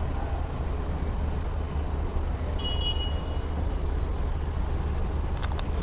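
Steady low vehicle rumble, with a short electronic beep about halfway through and a few sharp clicks near the end.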